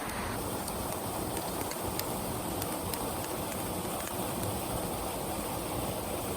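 Steady rain falling on the water and the boat, an even hiss with scattered faint drop ticks.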